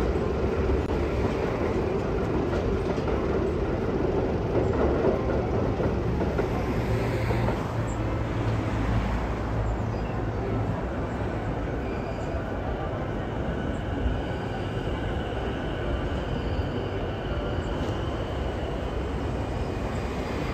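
Electric commuter trains running on the rails, a continuous rumble of wheels on track: first a Tokyo Metro Marunouchi Line train crossing the river bridge, then JR Chuo and Sobu Line trains. The rumble is louder in the first half, and a faint steady high whine joins in about halfway.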